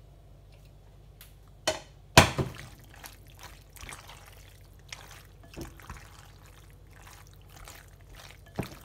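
Silicone spatula stirring penne through a thick, chunky tomato sauce in a ceramic dish: irregular wet squelching and scraping. A couple of sharp knocks come about two seconds in, the second the loudest, and another just before the end.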